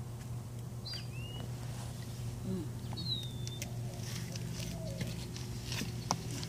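A small bird chirps twice, short whistled calls that dip in pitch, over a steady low hum. Faint scattered clicks and taps come in the second half.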